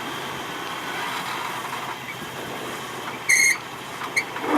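Off-road Jeep's engine running steadily at low speed as it crawls over rocks. About three seconds in comes a short, loud, high-pitched squeak, and a fainter one follows near the end.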